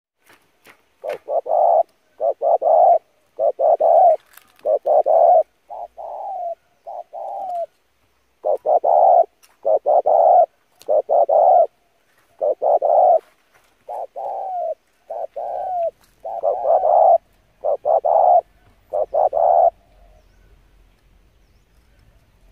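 Spotted dove cooing: a long run of short, low coo notes in repeated groups, a few of them falling in pitch, which stops about twenty seconds in.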